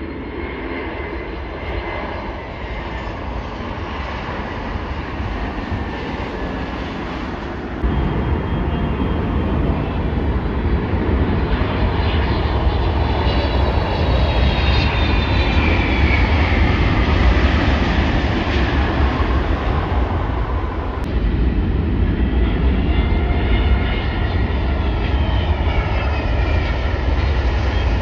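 Jet airliners landing close by: a heavy engine rumble with high turbine whines that slide down in pitch as each plane passes. The sound jumps suddenly louder about a quarter of the way in, where one landing gives way to the next.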